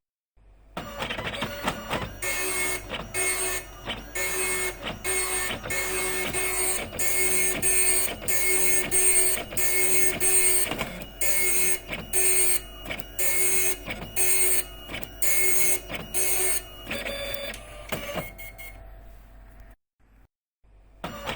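Epson dot matrix printer printing: the print head rattles across the page in short, evenly repeating passes, each under a second long. It pauses briefly near the end, then starts printing again.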